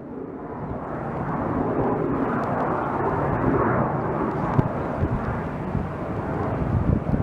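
Jet airliner engine noise, a steady rushing roar that swells over the first couple of seconds, with strong wind buffeting the microphone in irregular low thumps.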